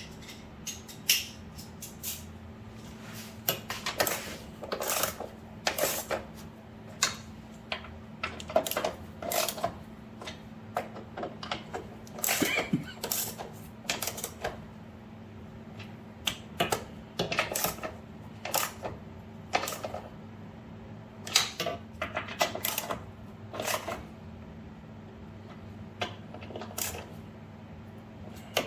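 Irregular clicks and clanks of hand tools and metal parts being handled during car suspension work, over a steady low hum.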